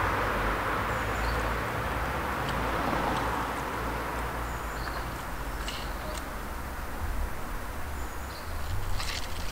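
Outdoor background noise: a steady hum from passing traffic fades away over the first few seconds, with a low rumble underneath. A bird chirps about three times, and there are a few light clicks around the middle and near the end.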